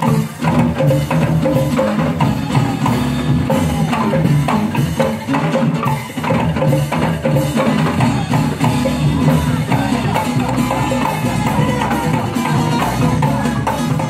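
Rampak kendang: several Sundanese kendang hand drums played together in a fast, dense rhythm of sharp knocks, with steady pitched notes underneath, heard through stage loudspeakers.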